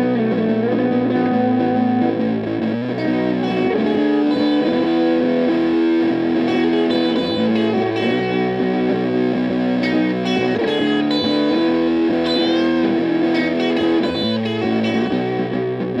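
Electric guitar, a Fender Jazzmaster on its middle pickup position, played through a Bookworm Effects Seths Fuzz pedal into a Silvertone 1472 tube amp: gritty, distorted fuzz chords held and changed every second or two. The pedal's knobs are turned as it plays.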